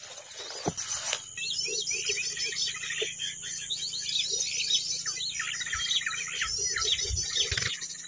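Many quick, high bird chirps and twitters overlapping without pause, after a brief rush of noise in the first second.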